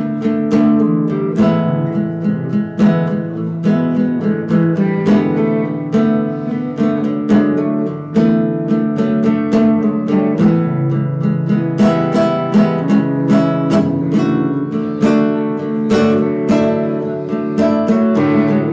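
Instrumental band music led by acoustic guitar, played in quick picked and strummed chords over a steady low accompaniment, with no singing.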